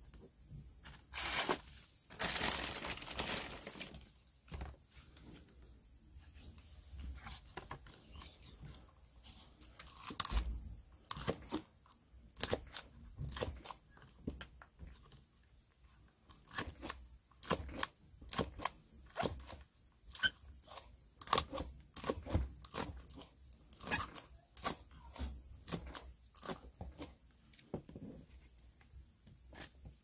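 Victorinox Trailmaster Swiss Army knife slicing a green onion into rings, each stroke a crisp crunch and tap of the blade on the cutting mat, repeating about one or two times a second through the second half. Near the start, a few seconds of louder rustling handling noise.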